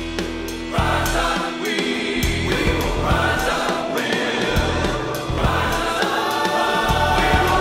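Gospel-style rock anthem: a backing choir comes in about a second in, singing long held chords over a drum beat.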